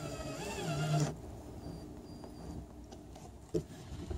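Cordless drill driving a screw into a wooden hatch slide, its motor whine wavering in pitch under load and stopping suddenly about a second in. A single sharp click follows near the end.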